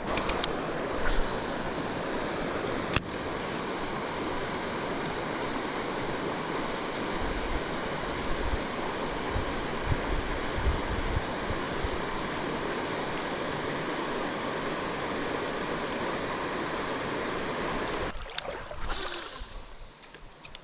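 Steady rush of flowing river water, with a single sharp click about three seconds in; the rushing drops away abruptly near the end.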